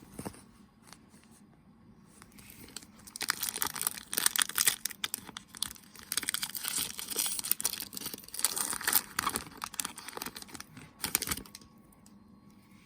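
Pokémon card tripack packaging being torn open and crinkled by hand: a crackling tear of plastic and foil that starts a few seconds in and lasts about eight seconds, after a few faint handling clicks.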